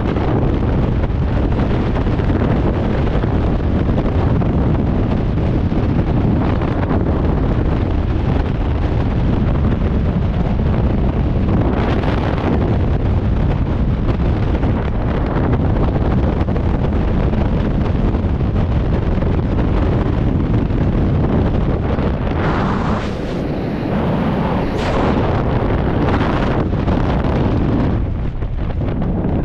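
Wind buffeting the microphone in a steady loud rumble, with stronger gusts about twelve seconds in and again near the end.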